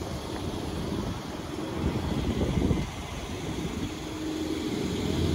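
Street traffic: a low rumble of vehicle engines. Near the end a steady engine hum comes in and grows louder.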